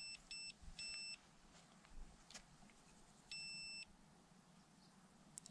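Tenma 72-10410 digital multimeter beeping faintly while its probes are held on a capacitor under test. There are three short beeps in the first second or so, then one slightly longer beep about three and a half seconds in.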